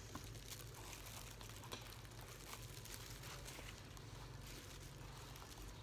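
Faint rustling and small crinkles of plastic-gloved hands moving a mixed salad across a banana-leaf platter, over a low steady hum.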